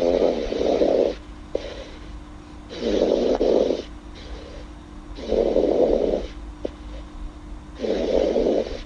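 A girl snoring: four snores, each about a second long, coming about every two and a half seconds.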